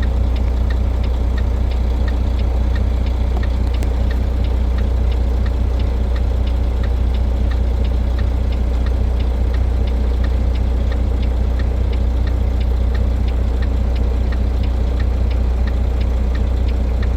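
Vehicle engine idling steadily with a deep hum, and a light regular ticking about twice a second.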